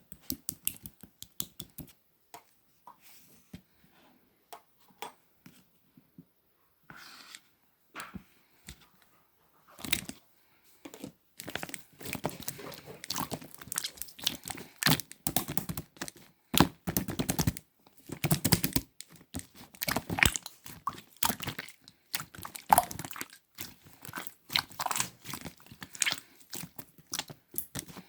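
Slime being squished, pressed and stretched by hand, giving many small sticky clicks and crackles, sparse at first and almost continuous after about ten seconds.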